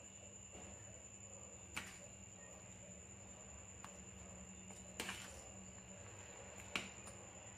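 A steel spoon stirring cooked lemon pieces in a steel bowl, knocking against the bowl three times: about two seconds in, at five seconds, and near the end, the last the sharpest. Between the knocks there is only a faint steady hum.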